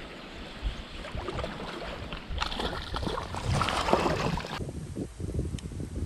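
Water splashing as a hooked trout thrashes at the surface, loudest for about two seconds near the middle, over low wind rumble on the microphone.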